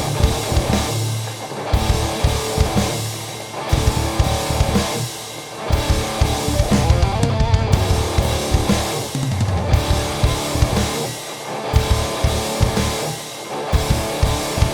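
High-gain distorted electric guitar playing a metal riff through a Keeley D&M Drive overdrive/boost pedal, with drums behind it.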